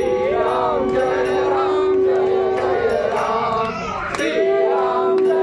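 Devotional music with one steady held note underneath, a crowd chanting and calling out over it, and regular light clicks.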